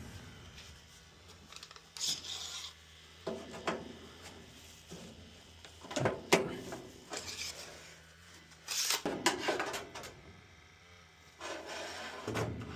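Scattered handling noises: short scrapes, rubs and light knocks, a second or less each, with a faint steady low hum under them.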